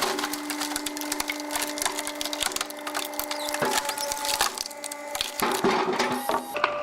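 Wood crackling and splintering as it is crushed in a press machine: a dense run of irregular sharp cracks over a steady machine hum.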